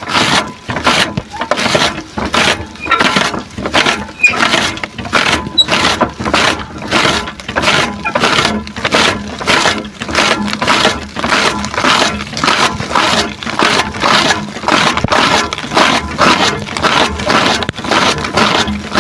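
Grass being cut in rhythmic strokes, each a short crisp tearing sound, about two a second.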